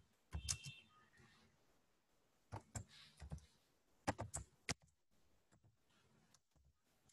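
Faint computer keyboard keystrokes in three short runs of clicks, typing out a line of text.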